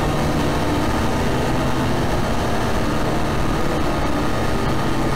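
A loud, steady, harsh drone of dense noise over a low hum, from the animation's electronic soundtrack.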